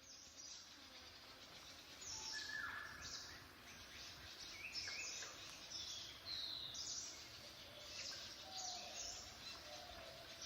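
Forest ambience of many birds calling in short high chirps and whistles, some sliding down in pitch, over a faint steady hiss.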